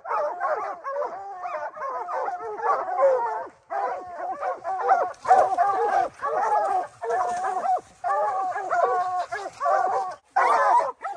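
A pack of bear hounds baying treed at the foot of a tree with a black bear up it, many dogs barking over one another almost without a break. The chorus drops out briefly about four seconds in and again near the end.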